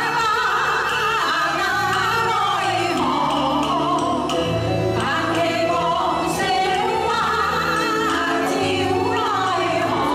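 Live performance of a folk song: singing over an accompanying traditional Chinese instrumental ensemble, with held bass notes underneath.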